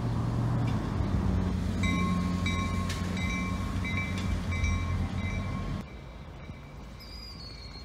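Diesel switcher locomotive running as it moves, a heavy low engine rumble with a ringing tone repeating about every half second over it. About six seconds in the sound cuts to a much quieter scene.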